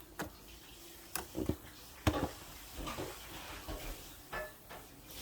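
Scattered light taps and clicks, about six at irregular intervals, as small hard objects are handled.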